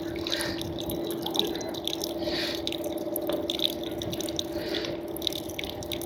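A thin stream of filtered water trickling and splashing from the spigot of a Purewell K8680 portable reverse-osmosis purifier, over the steady, fairly quiet hum of the unit's pump.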